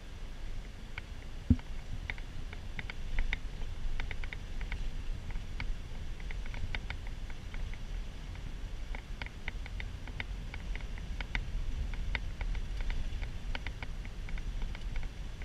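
Cabin noise of a van driving: a steady low engine and road rumble, with light clicking rattles at irregular moments throughout and a single sharp thump about a second and a half in.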